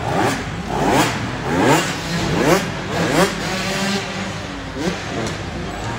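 Racing dirt bike engines revving hard, their pitch rising in repeated sweeps and falling back as the riders throttle up, shift and ease off over the jumps.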